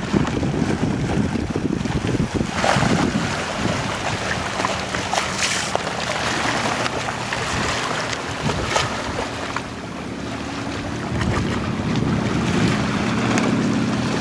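Wind buffeting the microphone over harbour water lapping, with a few splashes from kayak paddles. A low, steady engine hum comes in about four seconds in and grows louder near the end.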